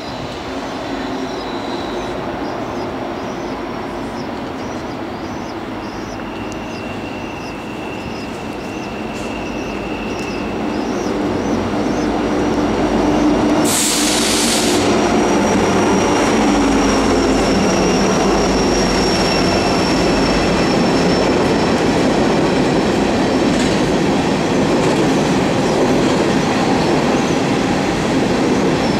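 Two BNSF diesel locomotives pulling an empty coal train rumble louder as they draw near, then the train goes on as a steady rolling noise of empty coal hopper cars passing. Thin high wheel squeals come and go, and a brief hiss cuts in about halfway through.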